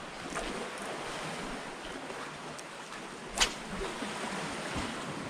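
Steady wash of small waves on the shore with some wind, and one short sharp click about three and a half seconds in.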